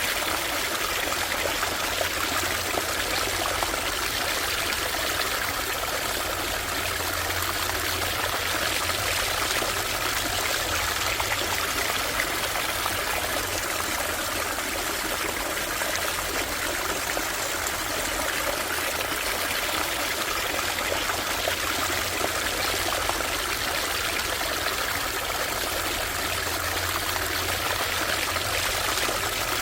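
Shallow stream water running and trickling over stones, a steady even rush.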